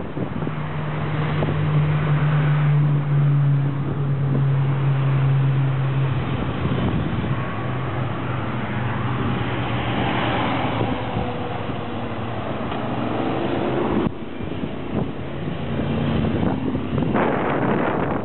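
Motorcycles passing along a mountain road, their engines holding a steady note at first and then rising and falling as they ride through, with wind on the microphone.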